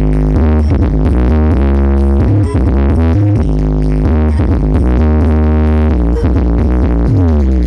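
Loud electronic dance music with a heavy, booming bass line, played through a large carnival sound system. Near the end, several notes slide downward in pitch.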